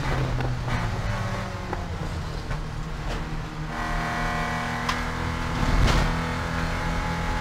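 Porsche 944 Spec race car's 2.5-litre four-cylinder engine heard from inside the car, running under load at fairly steady revs. Light rattling clicks, then a loud thump about six seconds in.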